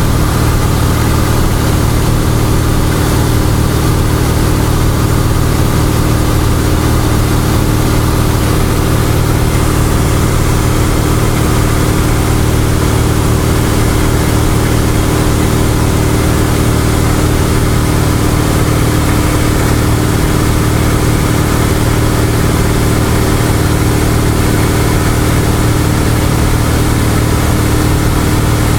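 Cessna 172's piston engine and propeller running steadily in cruise, heard from inside the cabin, with a steady hiss above the low hum.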